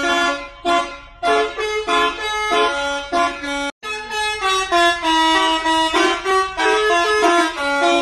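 Bus telolet horn, a set of multi-tone air horns, playing a tune of held and quick notes, with a brief break just before four seconds in.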